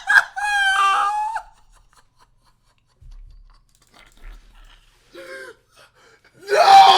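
A man's drawn-out vocal exclamation that stops after about a second and a half, then a few seconds of near quiet, and a loud shout near the end.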